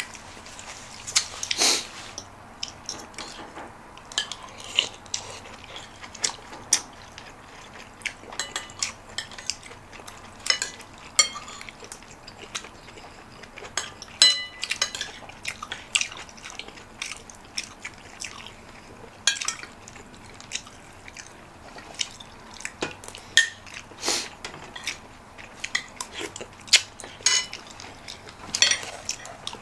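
Metal spoon and fork clinking and scraping against a bowl and plate at irregular intervals during a meal, some clinks ringing briefly, with soft eating sounds between them.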